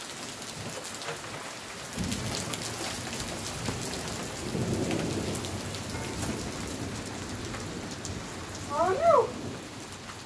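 Steady rain falling, with a low rumble of thunder that rises about two seconds in and swells again around the middle. Near the end, two short calls that rise and fall in pitch are the loudest sounds.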